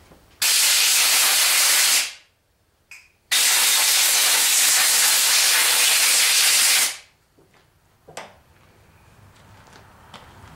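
Compressed-air blow gun hissing in two blasts, blowing packaging dust off new crankshaft main bearing shells. The first blast lasts about a second and a half; after a brief puff, the second runs about three and a half seconds and cuts off sharply.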